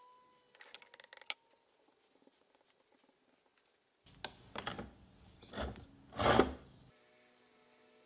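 Small wooden blocks clicking and knocking against each other and the wooden workbench, then four short rasping strokes, the last one loudest, as a small wooden block held in a bench vise is worked.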